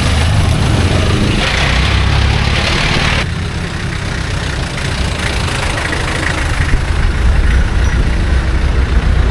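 A motor vehicle's engine running steadily, heard close, with a strong low end. Extra hiss from about a second and a half to three seconds in stops abruptly.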